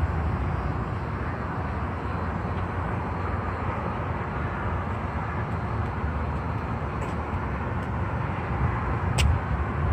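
Car rolling along at light throttle: a steady low engine and road rumble with no revving, and one sharp click about nine seconds in.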